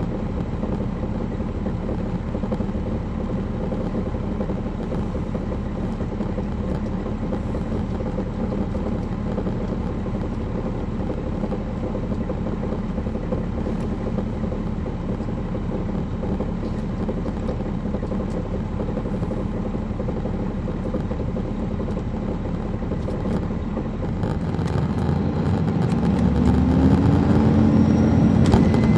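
On-board sound of a 2007 MCI D4500CL coach's Caterpillar C13 ACERT diesel engine running steadily. About 25 seconds in, the engine revs up, rising in pitch and getting louder as the bus accelerates.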